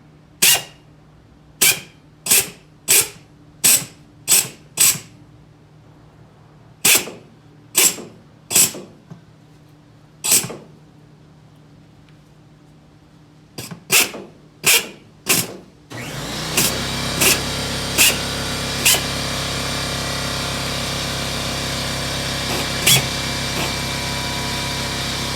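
A power tool used in short, sharp bursts, about fifteen of them at uneven spacing. About two-thirds of the way in, a steady machine noise starts and runs on, with a few more short bursts over it.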